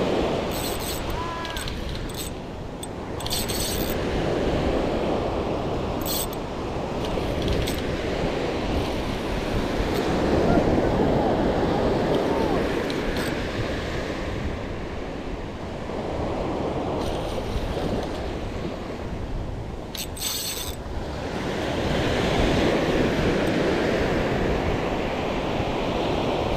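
Small surf breaking and washing up a sandy beach, the rush swelling and easing as each wave comes in, with wind on the microphone. A few short sharp clicks stand out now and then.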